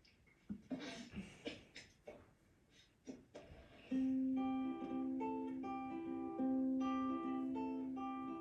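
A few faint scattered clicks and short sounds, then, about four seconds in, light plucked-string music (ukulele-like) begins, a melody of ringing held notes.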